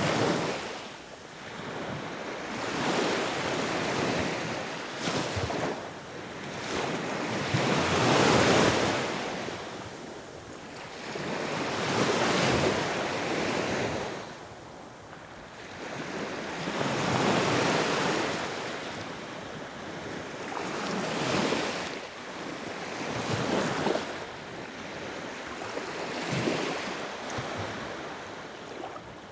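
Sea waves breaking and washing on a shore, swelling and ebbing in a slow rhythm of a surge every four to five seconds, with some wind noise.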